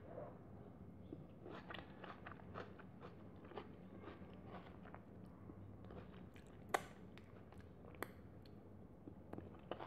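A person chewing food with wet mouth smacks, close to a clip-on microphone. There are two sharp smacks, about seven and eight seconds in, as food-covered fingers are licked.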